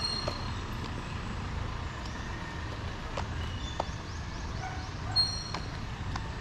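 Outdoor ambience: a steady low rumble with scattered light clicks and two brief high chirps, the louder one about five seconds in.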